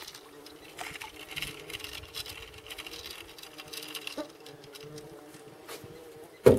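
Flying insects buzzing steadily near the microphone, several droning pitches at once, with a couple of faint knocks. A louder sound starts right at the end.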